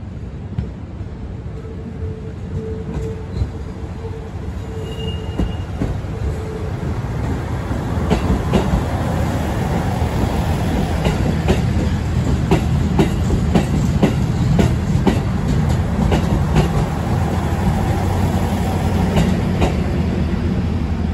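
JR Central KiYa 95 'Doctor Tokai' diesel inspection train passing close by. Its running rumble grows louder as it draws near, then wheels clack over rail joints in a rapid run of sharp clicks as the cars go past.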